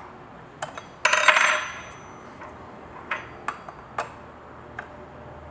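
Metal clinks and clicks from tightening the chain on an ICS 695XL concrete chainsaw, with a hand tool on the front tension screw and the chain against the bar. A louder metallic clatter with a brief ring about a second in, then a few separate light clicks.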